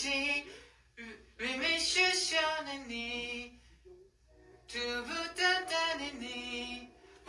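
A person singing a Chinese song unaccompanied, in short phrases with held notes and brief pauses between them.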